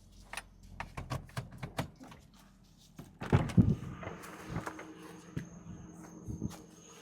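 Car door handling: a run of clicks and knocks, then a loud knock cluster about three seconds in like a door shutting. A faint steady hum and a thin high tone follow, the car's systems switched on.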